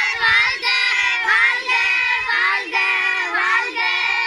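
A group of children singing together in high voices, with held notes that glide and carry on without a break.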